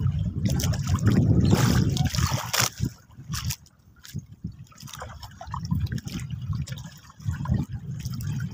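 Sea water splashing and trickling in uneven surges, over a low rumble. It is loudest in the first few seconds, then quieter and broken up.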